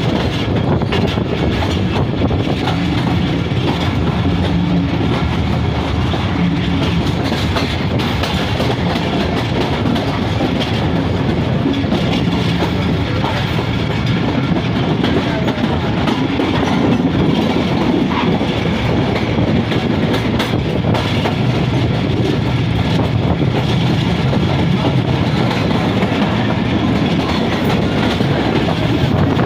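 Passenger train running, a steady loud rumble and rattle of the moving carriage with the clack of wheels on the rails.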